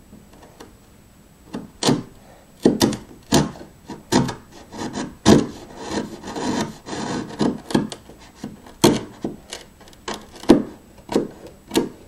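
A hand-held blade cutting into wood in short, irregular strokes, beginning about a second and a half in, with a scraping stretch in the middle: cutting in the shallow recess for a half mortise lock's brass plate.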